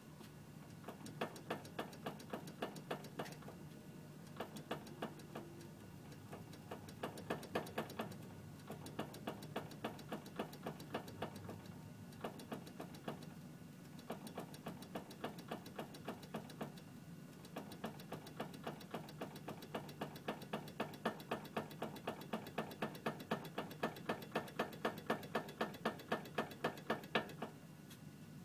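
2006 Honda CR-V steering clunking as the wheel is moved: a rapid series of sharp clicks, about three a second, in runs with short pauses, over a steady low hum.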